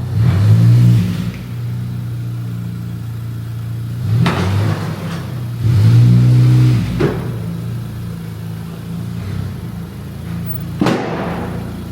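A car engine idling steadily and revved four times: a long rev at the start, one near 4 s, another around 6 s and a short blip near 11 s.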